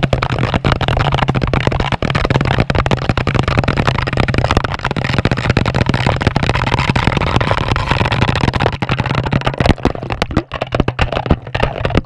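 Magic Chef top-loading washing machine on its spin cycle: a steady low motor hum under a dense, rapid rattling. Near the end the rattle becomes more uneven and quieter.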